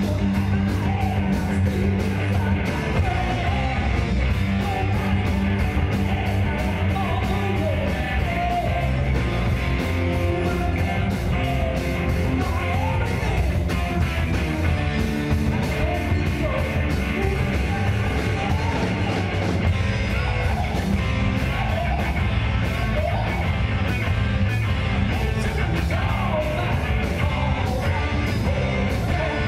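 Live rock band playing: a male lead singer over electric guitar, keyboards, bass and drums, with a steady, driving drum beat.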